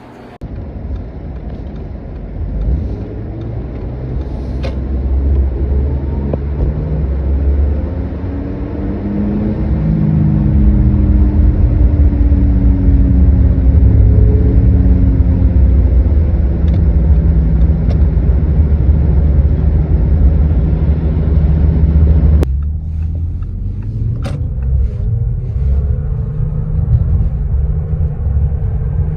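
Audi A6 C7 being driven, a heavy low rumble with a hum that rises and falls in pitch, growing louder over the first ten seconds or so: the drone of a worn front wheel bearing.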